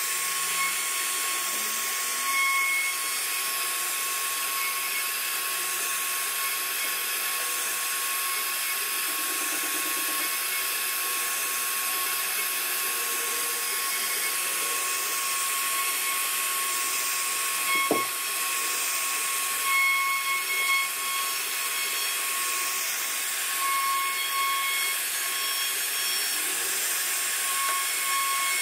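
CNC router spindle running with a steady high whine as its bit carves an ornamental relief into a wooden panel, with a constant hiss of cutting.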